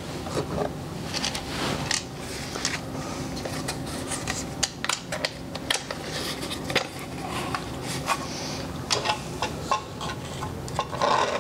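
Cards and small game tokens handled on a tabletop: scattered light clicks and taps, over a steady low hum.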